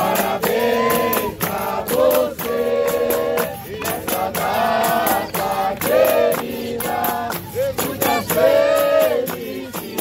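Capoeira roda music: a group singing in chorus over steady hand-clapping and pandeiro beats.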